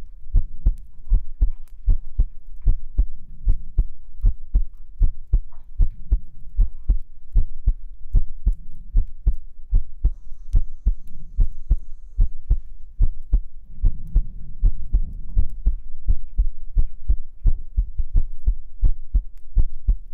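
A person's heartbeat heard close up on a 3Dio binaural microphone: steady, regular lub-dub thumps in pairs.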